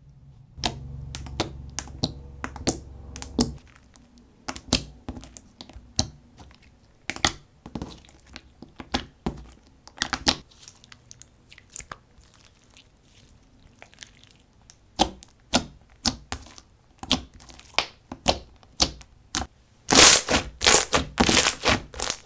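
Slime being folded and pressed by hand, making a string of sharp clicks and pops from trapped air. The popping turns into dense, louder crackling about two seconds before the end.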